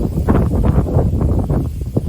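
Strong, gusty wind buffeting the microphone: a loud, uneven rumble that surges and eases in gusts.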